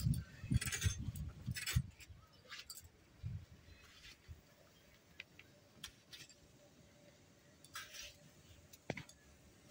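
Raw vegetables being cut on a bonti, the upright curved floor-blade of a Bengali kitchen. A run of cuts and knocks in the first two seconds, then faint scattered clicks and snicks as pieces are sliced off and dropped.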